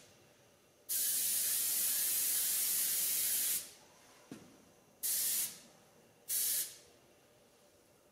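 Airbrush spraying ceramic coating on compressed air. It gives a hiss of about three seconds, then two short half-second bursts, with a faint click between.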